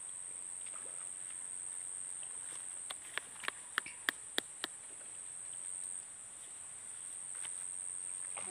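Insects droning in one steady, high-pitched note. About three seconds in, a quick run of about seven sharp clicks cuts across it.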